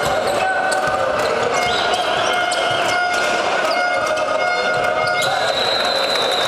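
Basketball being dribbled on a hardwood court floor, a run of repeated knocks, with short high-pitched squeaks and the steady noise of the arena in the background.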